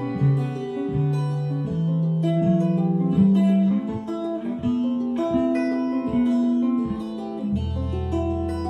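Improvised guitar and bass music with plucked notes. Low notes climb step by step and are held, and a deep sustained note comes in near the end.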